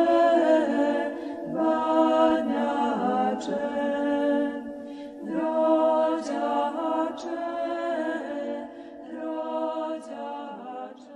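Unaccompanied voices singing a Serbian Christmas carol in long held notes, fading out near the end.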